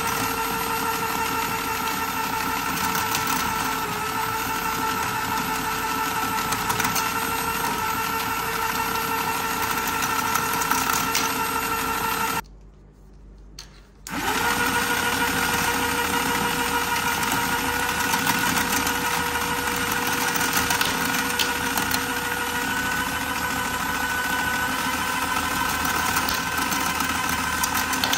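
Small DC motor of a 'Small Duck' climbing-staircase toy running off a bench power supply, with a steady whine and the clatter of its plastic moving-stair mechanism. About halfway through it cuts out for about a second and a half. It then spins back up to a slightly higher pitch at 10 volts instead of 9.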